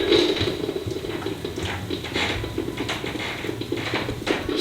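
Breville iced coffee maker gurgling and sputtering steadily as it pushes hot water through its brew basket on a first rinse cycle with plain water.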